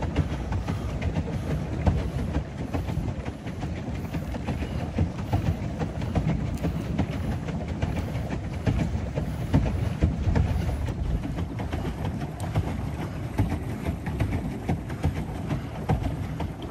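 Pedal boat under way: a steady low rumble with small irregular splashes and clatter from the pedalled paddle wheel, mixed with wind buffeting the microphone.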